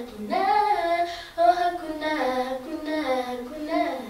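A young girl singing a gospel song solo, holding long notes and sliding between pitches with no instrument behind her.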